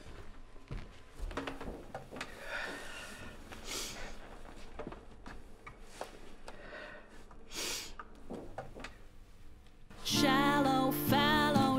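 Quiet room sound with faint rustles and soft knocks. About ten seconds in, a song starts loudly: singing with vibrato over acoustic guitar.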